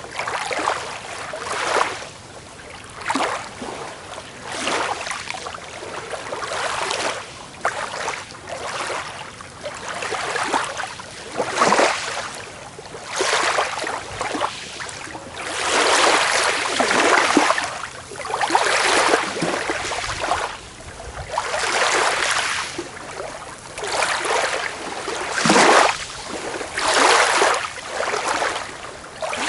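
Small waves lapping and breaking on a beach, with an irregular surge of hissing wash every second or two.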